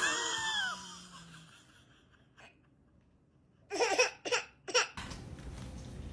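A person laughing in three short bursts about four seconds in, after a sudden loud sound with a pitch that bends up and down at the start.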